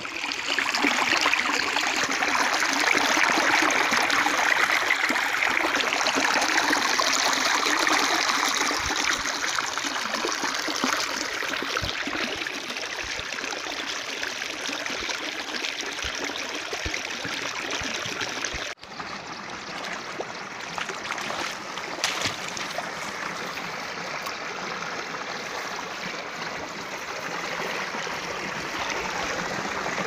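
Rain-fed seasonal stream rushing and splashing over rock in shallow cascades: a steady running-water noise. It is loudest in the first third and a little softer after a brief break about two-thirds of the way in.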